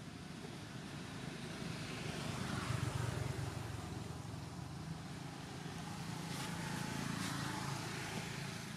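Motor vehicle engine hum from passing road traffic: a steady low drone that swells about two to three seconds in and again near the end.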